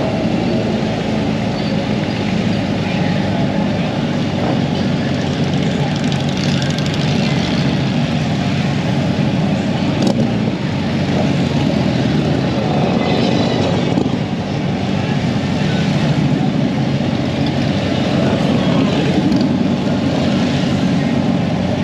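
Motorcycle engine running at steady revs while riding, with wind and road noise.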